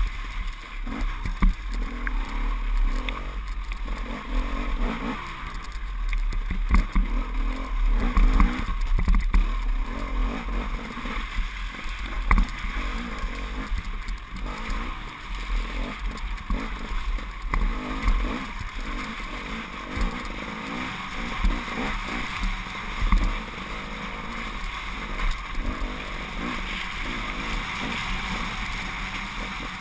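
KTM enduro motorcycle engine running as it is ridden along a rough, muddy trail, with steady wind rumble on the microphone and frequent knocks from bumps in the track.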